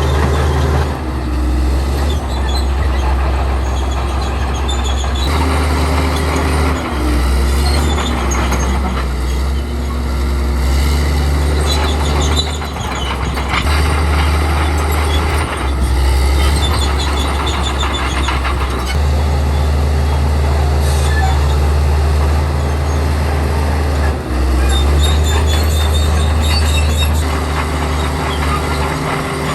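Komatsu D65E bulldozer's diesel engine running under load, with its steel tracks clanking and squealing. The sound changes abruptly several times.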